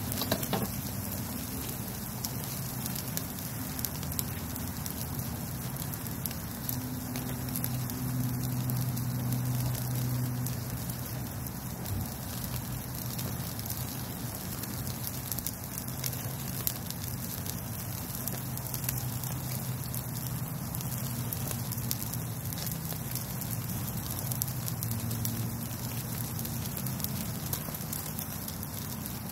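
Pinyon juniper wood fire crackling under steaks sizzling on a stainless-steel grill grate, with a steady hiss and a patter of small crackles as juices drip onto the flames. A faint low hum comes and goes in the background.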